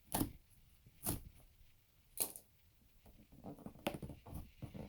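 Cardboard box being handled: four short rustling scrapes about a second apart, then a spell of fine crackly rustling near the end.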